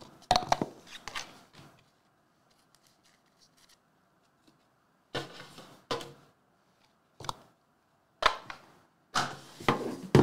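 A cardboard trading-card box and a metal hobby tin handled by hand: a series of short knocks, taps and scrapes a second or two apart, with a cluster of louder ones near the end.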